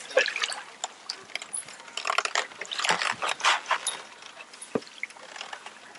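Baitcasting fishing reel being cranked, its gears clicking in short, irregular runs that are busiest in the middle.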